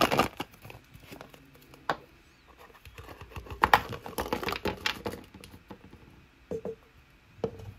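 Hands opening a plastic toy crayon and handling the small toys inside: a run of light plastic clicks and rattles, busiest in the middle, with a couple of soft knocks near the end.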